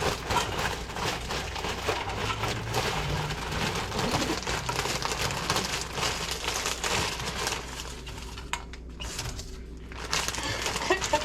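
Stir-fry vegetables (baby corn, mushrooms, broccoli, carrots, peppers, snap peas) frying in a hot pan: a dense, steady crackle with scattered small clicks, easing somewhat near the end.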